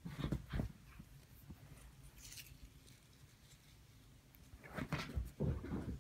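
Soft thumps and rustling of a pixie-bob kitten's paws bounding over a duvet-covered bed, a cluster right at the start and another about five seconds in, with a brief crinkle of a paper ball a couple of seconds in.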